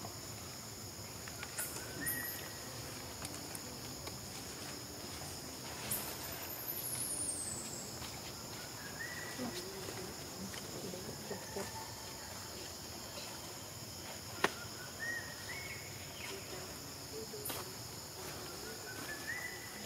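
Insects droning steadily at a high pitch, with a short rising call heard four times and a single sharp click about fourteen seconds in.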